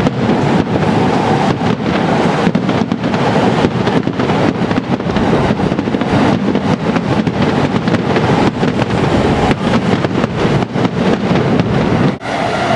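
Fireworks display together with a passing Chūō–Sōbu line commuter train, heard as one steady, loud rumble with no distinct single bangs.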